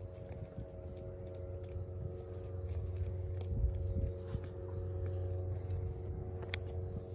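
Sheep grazing on dry hay and grass: many quick crunches and crackles as they tear the stems and chew. A steady hum runs underneath.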